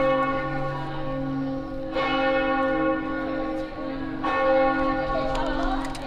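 Cathedral bell tolling: three strikes about two seconds apart, each ringing on until the next.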